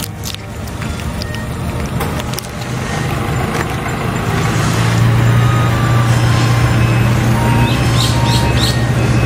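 Motor vehicle engine running with a steady low drone that grows louder from about halfway through, with a few short bird chirps near the end.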